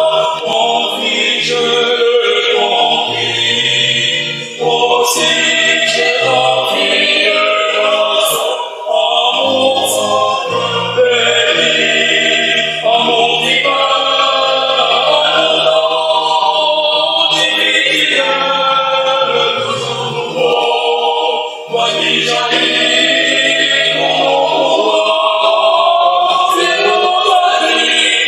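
Church choir singing a hymn in harmony, on long held notes in phrases with short breaks between them.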